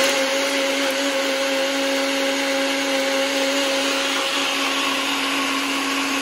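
NutriBullet 900 Series blender running at full speed, blending a thick protein shake: a steady motor whine with a constant low hum and a rushing noise, unchanging throughout.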